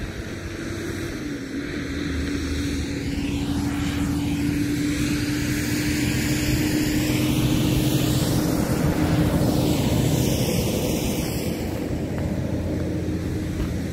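Propeller-driven light aircraft flying over: a steady engine drone that slowly grows louder to a peak about two-thirds of the way through, then starts to fade, with a phasing whoosh as it passes.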